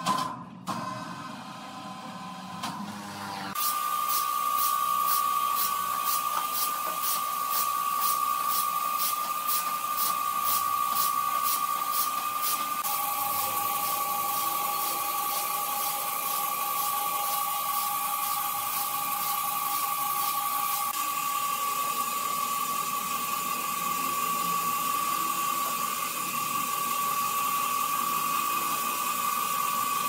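Sawmill machinery running with a steady high whine, with sharp ticks about twice a second over it for the first stretch. A second, lower whine comes in midway and stops later.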